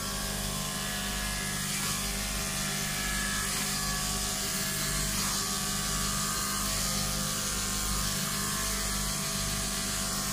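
Electric dog-grooming clippers fitted with a #4FC blade running steadily as they shave through a Pomeranian's thick coat.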